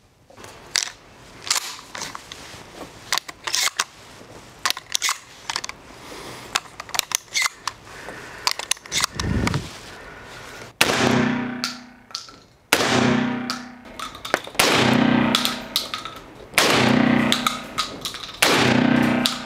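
A series of small metallic clicks from handling the shotgun, then five shots from a Mossberg 940 JM Pro 12-gauge semi-automatic shotgun firing low-recoil slugs, about two seconds apart. Each shot echoes off the walls of the indoor range.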